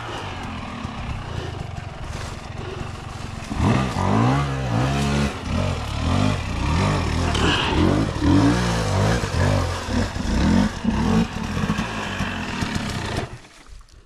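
KTM 300 XC-W two-stroke dirt bike engine running at a low idle, then revved and blipped over and over from about three and a half seconds in as the bike is worked down a steep rocky descent, before the engine cuts out shortly before the end.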